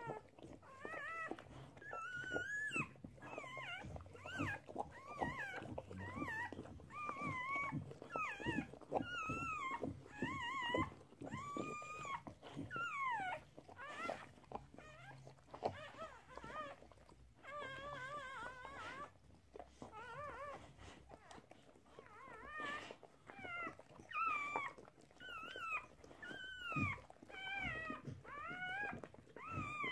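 Newborn puppies squeaking and crying: a steady run of short, wavering high-pitched calls, with brief lulls between bouts.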